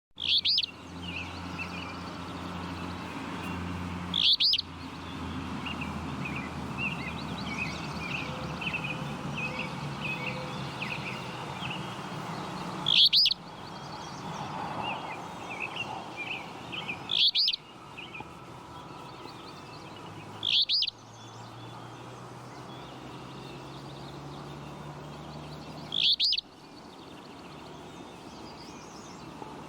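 A flycatcher giving six short, loud, high calls several seconds apart, over fainter twittering of other small birds and a steady low hum.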